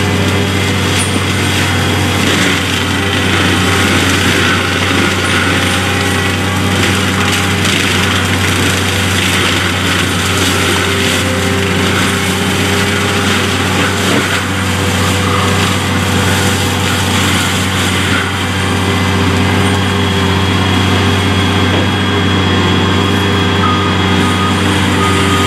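Cat 586C forestry mulcher at work: its diesel engine runs steadily under load while the mulching head shreds brush and scrub. The sound is a continuous heavy drone with a deep hum and a grinding noise over it.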